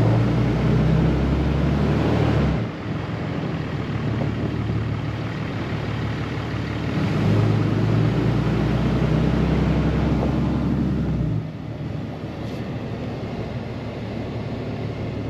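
Car driving slowly, heard from a camera held outside its window: steady road and wind noise over a low engine hum. The low hum drops away suddenly about two and a half seconds in, comes back, and drops again about eleven seconds in.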